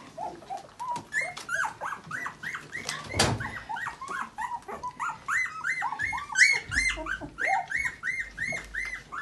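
Young puppy whimpering and squealing at the bottle, a quick run of short rising-and-falling cries, about three or four a second; it is reluctant to feed. A single knock about three seconds in.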